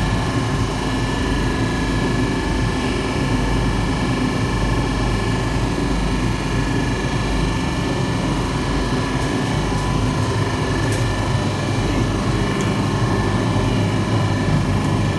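Rotary rack oven running: a steady mechanical drone from its burner and fans, with a thin steady whine above it.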